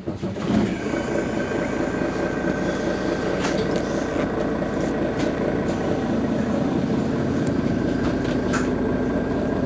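Mercedes-Benz Citaro city bus's rear-mounted diesel engine idling steadily while the bus stands at a stop, with a steady high whine over the engine note.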